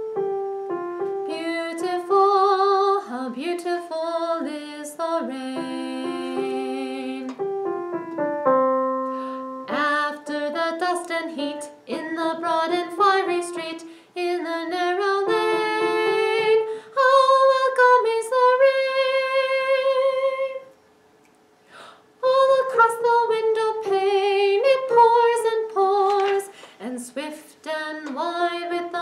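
A woman singing a melody over piano accompaniment, with a brief pause about three-quarters of the way through.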